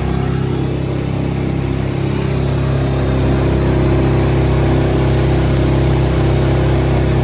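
2024 Suzuki DF6A 6 hp four-stroke outboard motor running steadily at part throttle while under way, held low for its break-in period; it gets a little louder about three seconds in.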